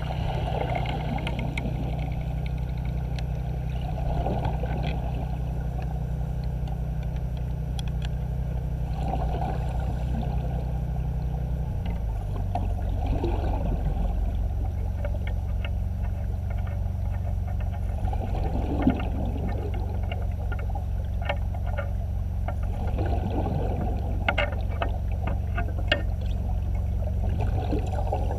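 Steady low machinery hum with a gurgling rush of bubbles every four to five seconds, like a diver breathing out underwater; the hum drops in pitch about twelve seconds in, and scattered sharp crackling ticks come in the second half.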